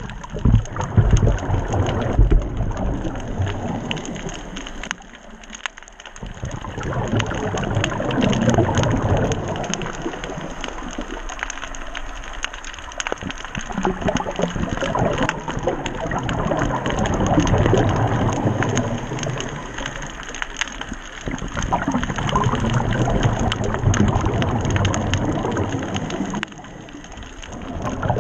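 Underwater ambience heard through a camera resting on the seabed: a constant fine crackling, with low rushing surges of water that swell and fade every few seconds.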